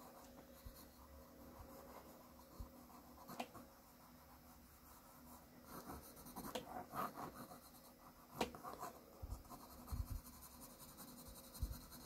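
Graphite pencil scratching faintly across drawing paper in short hatching strokes, busiest about six to seven seconds in, with a few soft knocks.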